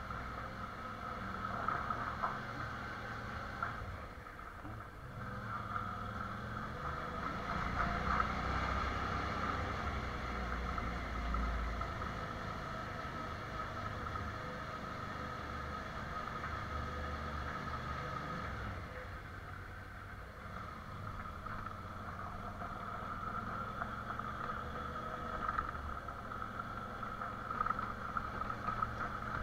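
Adventure motorcycle running steadily along a rough gravel track through a rock tunnel.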